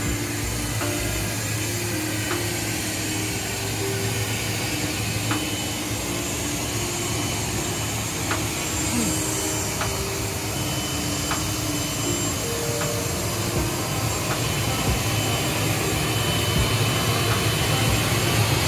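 A motor vehicle running steadily under a heavy, even rushing noise, with a low hum throughout.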